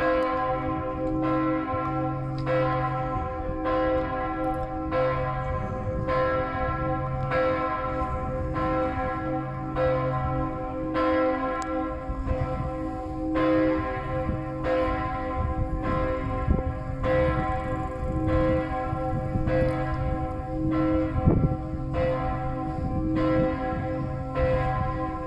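Several church bells ringing together in a full peal, strikes coming roughly once a second over sustained, overlapping tones: the noon ringing.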